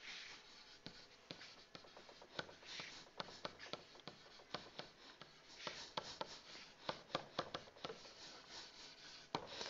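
Stylus tapping and scratching on a tablet surface while writing out a sentence by hand: faint, with many quick ticks and short scratchy strokes.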